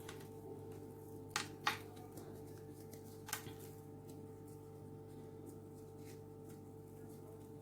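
A few light clicks and soft handling noises, two close together about a second and a half in and one more near the middle, over a steady electrical hum, as seasoning is added to a pan of chicken.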